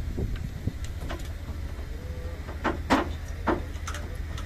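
Metal clanks and knocks from crew working on the steel excavating chain of an RM900 ballast cleaning machine, the loudest about three seconds in, over a steady low rumble.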